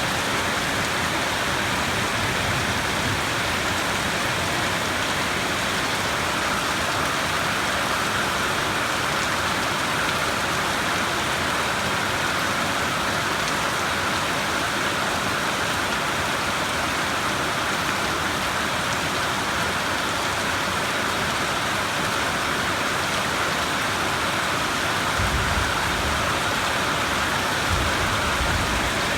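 Steady rain falling, an even continuous hiss, with a low rumble of distant thunder near the end.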